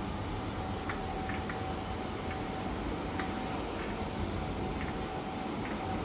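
Faint, irregular clicking from the front wheel of a 2014 Jeep Grand Cherokee, roughly once a second, over a steady low rumble of the vehicle.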